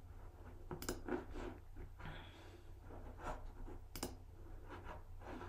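Computer mouse clicks with faint desk handling, sharp clicks about a second in and again near four seconds, over a low steady hum.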